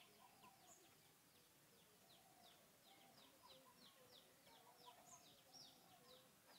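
Faint birds chirping: a steady string of short, high, falling notes, several a second, over quiet outdoor background.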